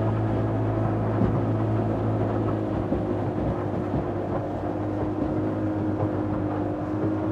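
200 hp Evinrude two-stroke outboard running steadily at planing speed while the wooden runabout makes fast turns, over the rush of water and wind along the hull.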